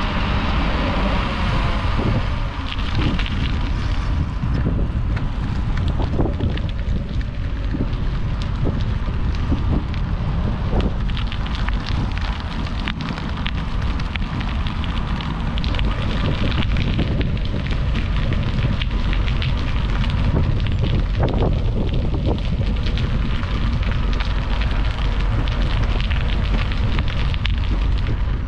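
Wind rushing over a GoPro Hero 8's microphone while riding a bicycle: a steady low rumble with scattered light clicks.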